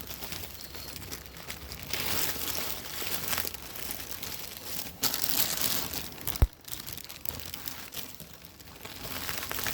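Plastic bags crinkling and rustling in uneven swells as they are rummaged through and handled, with one short sharp knock about two-thirds of the way in.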